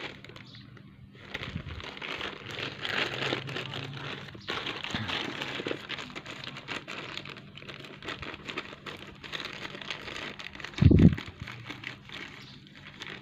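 Plastic courier mailer crinkling and crackling as it is handled and cut open with scissors, with one short, loud low thump near the end.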